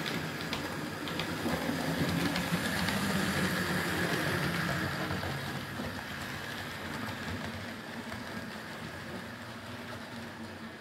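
Model railway locomotive, a streamlined A4 Pacific model hauling coaches, running along the track: a steady hum of its electric motor and the rumble of its wheels on the rails. It grows louder a couple of seconds in as it passes close, then slowly fades away.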